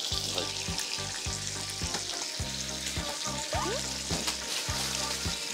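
Meat sizzling in a grill pan on a tabletop stove, a steady hiss, under background music with held bass notes and a regular beat.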